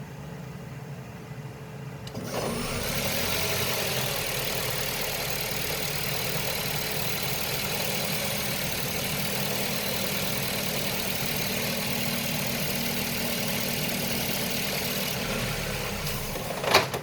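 2016 Ford C-Max engine starting about two seconds in and running with a steady hissing whir over a low hum, then cutting off near the end with one sharp knock: the noise the owner hears when the engine turns off.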